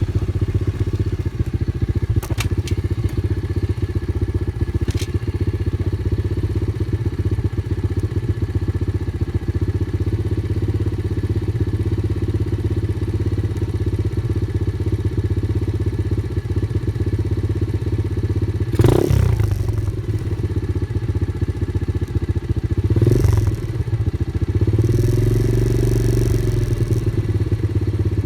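Off-road vehicle engine running steadily over a rough trail, with knocks and thuds from bumps, the loudest about two-thirds of the way through, then the engine revving up and down near the end.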